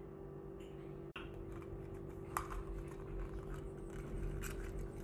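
Faint plastic clicks and handling noise as a plastic toy egg is pried open, over a steady low hum.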